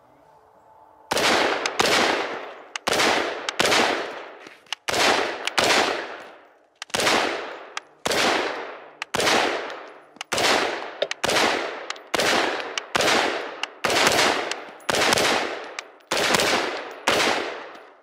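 Bushmaster ACR rifle firing a steady string of single semi-automatic shots, about three every two seconds, each shot ringing out with a long echo. The shooting starts about a second in and stops at the end.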